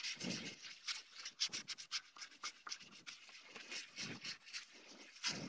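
400-grit wet sandpaper, folded in four, rubbed in small circles over the primer coat of a 3D-printed helmet: a quick run of soft, scratchy strokes, several a second. This is the wet sanding that levels out the print lines in the primer.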